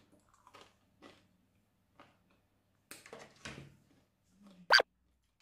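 Quiet eating and handling sounds: small scattered clicks and mouth noises, then a paper napkin rustling about three seconds in as hands are wiped. Near the end comes one short, sharp, pitched squeak, the loudest sound.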